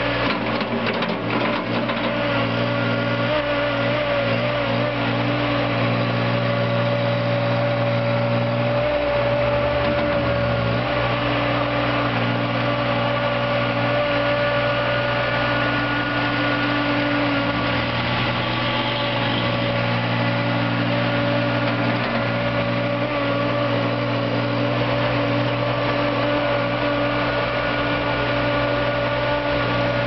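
Small engine of a Thomas 45DT mini tracked skid steer loader running steadily at working speed while the machine drives on its tracks and works its loader arms, with slight wavers in the engine note as it takes load.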